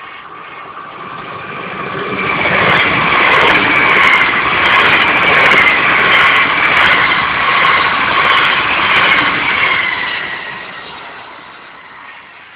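A train on the rails: a high, wavering whine over a rushing rumble that swells up over a couple of seconds, holds, then fades away near the end.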